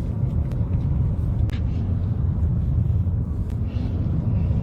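Steady low rumble of a car driving through a wildfire, with a few scattered sharp clicks.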